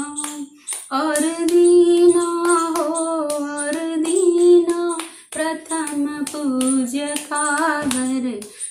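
A woman singing a Hindi devotional bhajan solo, keeping time with steady hand claps, with two short breaths between sung lines.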